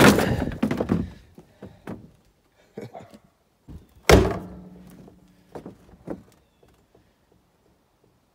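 Junk and scrap items being handled and dropped: a run of hard thunks and small knocks. The loudest comes about four seconds in and has a short ringing tail.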